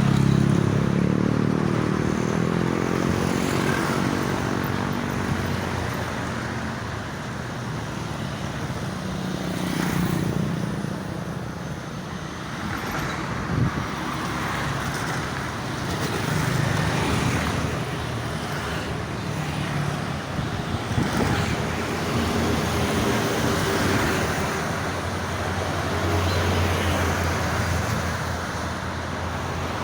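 Steady heavy road traffic on a highway, with cars and trucks passing one after another. Near the start, a passing vehicle's engine note falls in pitch as it goes by.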